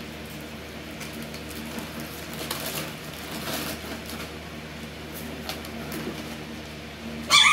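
Alaskan Klee Kai puppies at play: faint scuffling and scratching over a steady low hum, then one loud, short, high yip from a puppy near the end.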